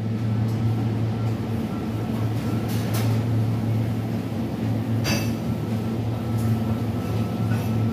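Steady low electrical hum of a convenience store's appliances, with two brief clinks, about three and five seconds in.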